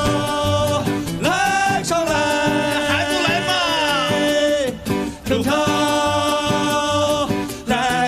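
A song with a sung vocal holding long, drawn-out notes that slide in pitch, over a band backing with a steady bass beat. The music dips briefly twice in the second half.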